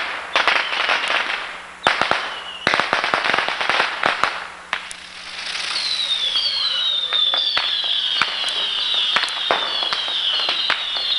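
Fireworks and firecrackers going off: several sharp bangs and a rapid crackle of small pops in the first few seconds. After that comes a run of high whistles, each falling in pitch, repeating nearly twice a second over scattered pops.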